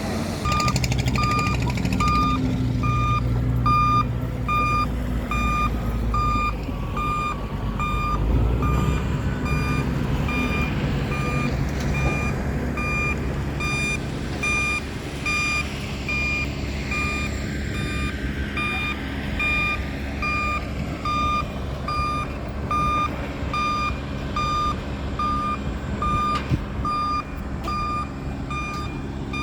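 A construction vehicle's reversing alarm beeping steadily at about two beeps a second over the low rumble of its diesel engine, the engine heavier for the first several seconds.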